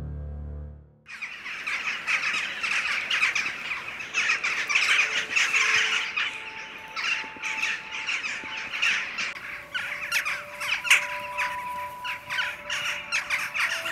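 A large flock of birds calling together in a dense, continuous clamour of many overlapping calls, starting about a second in.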